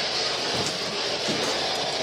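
Ghost box (spirit box) scanning through radio stations, giving a steady hiss of radio static with a few faint ticks.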